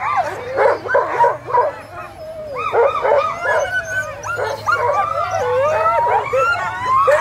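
A team of sled dogs barking, yipping and howling together in harness, with many dogs crying over one another at once, briefly easing off about two seconds in. It is the excited noise of racing dogs held at the start line, eager to be let go.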